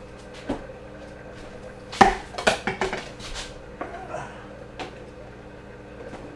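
Kitchenware clattering at a sink: a quick run of knocks and clinks about two seconds in, then a few lighter taps, over a faint steady hum.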